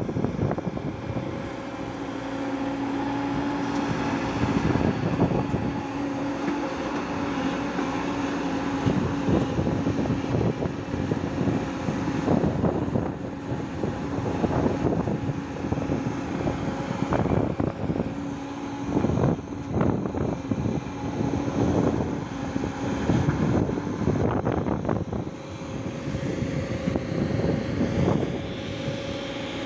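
Hyundai 140 crawler excavator's diesel engine running with a steady hum under load, with repeated knocks and clatter as its bucket digs and dumps sand and stones into a tipper truck's body. The hum drops away a few seconds before the end.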